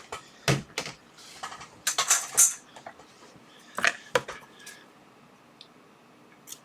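A few sharp clicks and knocks of small hard plastic and metal objects being handled on a workbench, in irregular clusters, mostly in the first four and a half seconds.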